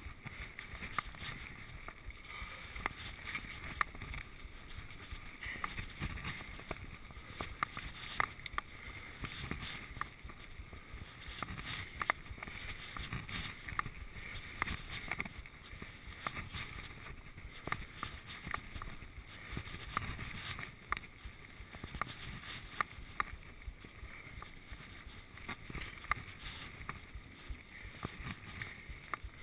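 Giant Trance full-suspension mountain bike rolling over a rough grass-and-dirt trail: a steady rumble of tyres on the ground with frequent sharp rattles and clacks from the bike over the bumps.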